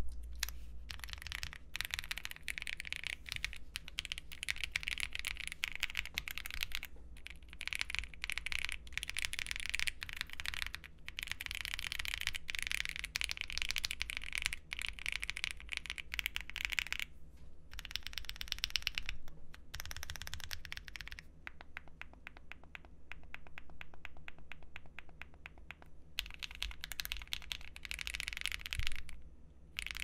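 Typing on a Wuque Mammoth20 numpad fitted with Wuque Aurora switches and GMK Lux keycaps: quick runs of keystrokes that thin out for a few seconds in the second half, then pick up again.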